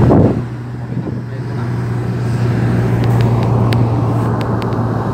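Inside a car cruising at about 120 km/h: steady engine and road drone with a low hum, a brief louder rush right at the start, and a few faint ticks a few seconds in.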